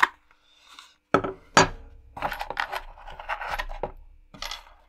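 Small metal screws and mounting hardware clinking as they are handled, a string of sharp metallic clicks starting about a second in.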